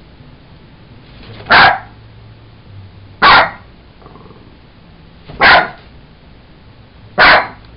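Jack Russell terrier barking four times, single sharp barks about two seconds apart.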